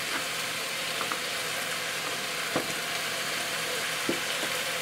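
Chicken thighs and diced onion, celery and carrot sizzling in ghee in a stock pot, a steady frying hiss. A few sharp knocks break in, the loudest about two and a half and four seconds in.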